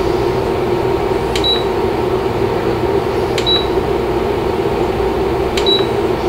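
Induction cooktop's control panel beeping three times, a short high beep with a key click about every two seconds, as the temperature is stepped up ten degrees at a time. A steady cooling-fan whir runs underneath.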